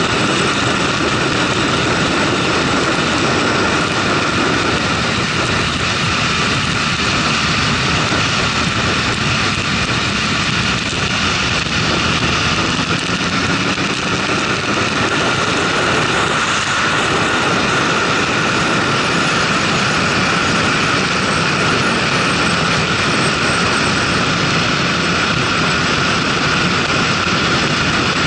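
Motorcycle running at highway speed, heard from a camera mounted on the moving bike: a steady rush of wind over the microphone mixed with a steady engine drone.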